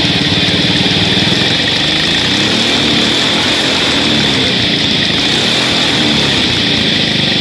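A vehicle engine running steadily at idle, loud, with a rapid even firing beat and a steady high hiss over it. Its pitch wavers slightly midway.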